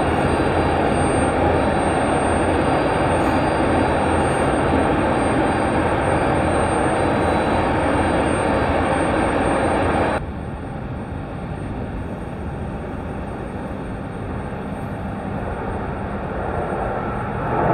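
Steady noise of aircraft engines running at an airport. It cuts off about ten seconds in to a quieter background that swells again near the end.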